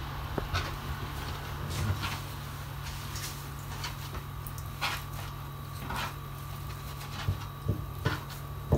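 Thin brick pastry sheets (feuilles de brick) crackling and rustling as hands fold and roll them around a filling, a few short crinkles and soft taps scattered through, over a steady low hum.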